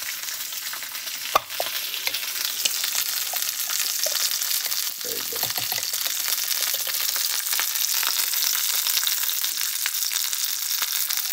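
Hot fat sizzling steadily in a frying pan as a rump roast sears, with one sharp clink about a second and a half in.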